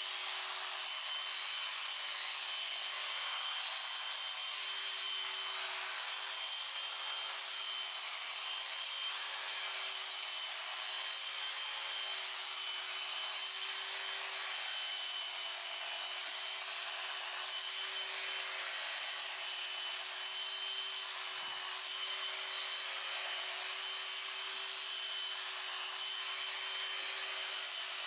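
Electric sheep shears running steadily, their motor giving a constant hum while the cutter works through the fleece.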